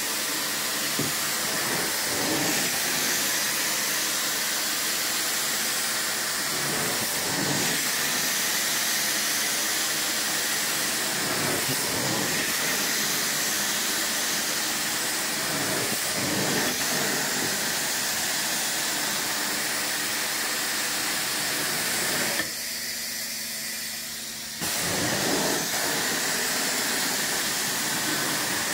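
Carpet-cleaning extraction wand and hose running: a steady loud rush of suction and spray hiss as the wand is drawn over wet carpet, surging slightly with each pass every four to five seconds. About two-thirds through, the sound drops for about two seconds, then comes back.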